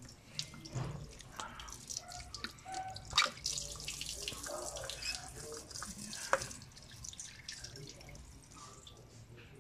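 Engine coolant dripping and trickling out of the open thermostat housing of a 1997 Mitsubishi Lancer as the old thermostat is worked out of it by hand, with a couple of sharper clicks.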